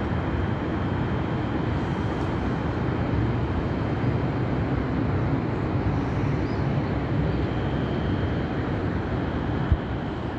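Steady low outdoor rumble with no distinct events, and one brief click near the end.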